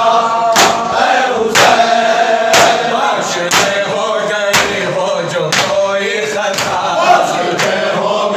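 A group of men chanting a noha, a Shia lament, in unison, with chest-beating (matam) in time: sharp hand-on-chest slaps landing about once a second under the singing.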